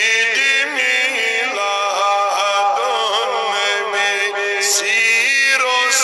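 A man chanting a Kashmiri naat, a devotional poem in praise of the Prophet, in a solo voice that holds long, wavering notes.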